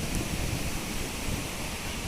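Water rushing steadily with a low, uneven rumble: the 'snoring' of flowing water, taken as a sign that water has come back and a good year is on its way.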